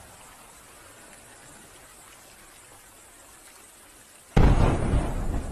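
Faint steady hiss, then about four seconds in an aerial firework shell bursts with a sudden loud boom that rumbles away.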